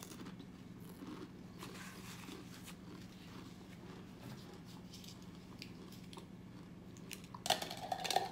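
Close-up chewing of Pringles potato chips with the mouth closed: soft scattered crunches, growing into a louder burst of crunching near the end. A steady low hum runs underneath.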